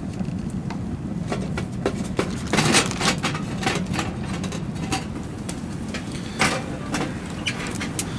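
Wood fire burning in a titanium tent stove: irregular sharp crackles and pops over a steady low rumble, with the loudest pops about two and a half and six and a half seconds in.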